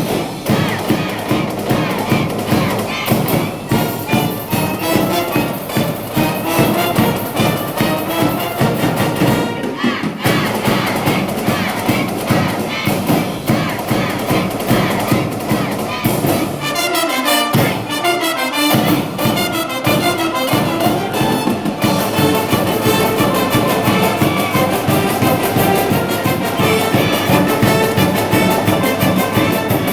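School wind band playing a baseball cheering medley live, brass and trumpets over a steady drum beat, with a brief break about ten seconds in.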